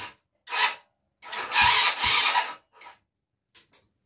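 ATV's electric starter cranking the engine in two raspy bursts, a short one and then a longer one, without the engine catching: the owner blames a weak battery.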